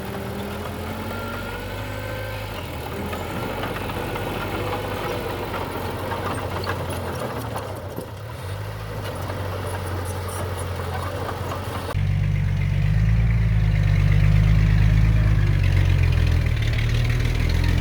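Diesel engines of heavy earthmoving machinery running, with light rattling in the first part. About twelve seconds in the sound changes abruptly to a louder, deeper engine drone.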